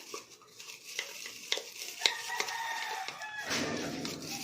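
A soapy bottle brush scrubbing the inside of a baby's feeding bottle, with a few sharp knocks and a rubbing swish that grows denser near the end. About two seconds in, a rooster crows once in the background, a held call of a little over a second.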